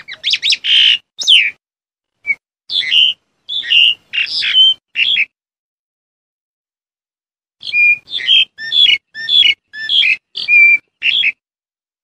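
Black-collared starling calling: a run of quick, varied whistled and chattering notes, a pause of about two seconds, then a second run of notes.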